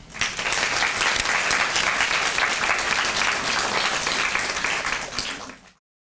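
Audience applauding. The applause starts right away and is cut off abruptly near the end.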